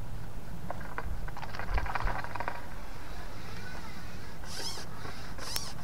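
Light clicks and rustling of fishing tackle being handled, with a couple of short higher scrapes and one sharp click near the end, over a steady low rumble.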